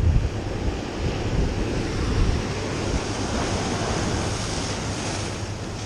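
Sea surf breaking and washing over coastal rocks, a steady rushing hiss that swells about two thirds of the way through, with wind rumbling on the microphone.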